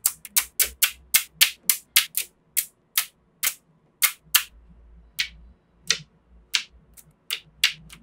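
Small neodymium magnetic balls snapping together with sharp, bright clicks as strands are pressed into place along the edge of a magnetic-ball sheet. The clicks come about four a second at first, then thin out to about two a second.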